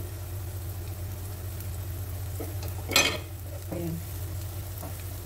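Leftover onion bits sizzling in hot oil in a nonstick pan while a spatula and a wooden spoon stir and scrape them, with one louder scrape or clatter about three seconds in. A steady low hum runs underneath.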